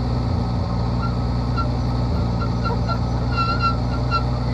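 Piston engine of a propeller aerobatic plane running steadily, heard from inside the closed cockpit. A string of short high chirps sounds over it, thickest about three and a half seconds in.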